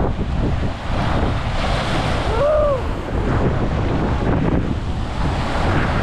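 Lake Michigan waves crashing against a breakwater, with strong wind buffeting the microphone. A louder wash of spray comes about two seconds in.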